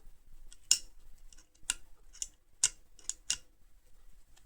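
Metal Wera ratcheting spanners being handled, making a series of sharp, irregular clicks, about six of them.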